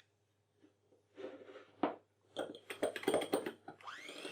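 Sugar spooned into a small cup of egg yolks, with soft scraping and then a run of clicks and knocks. Near the end an electric hand mixer fitted with one whisk starts up, its whine rising quickly in pitch and then holding steady.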